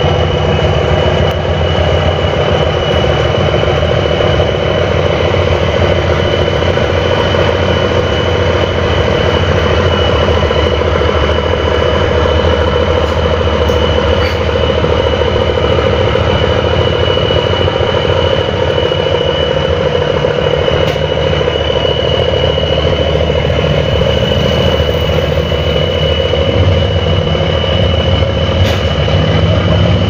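A boat's engine running steadily: a loud, even low drone with a constant high whine above it.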